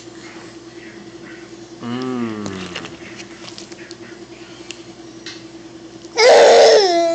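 A baby vocalizing while being fed: a short falling-pitch sound about two seconds in, then a loud high-pitched squeal near the end. Small clicks are scattered between the two.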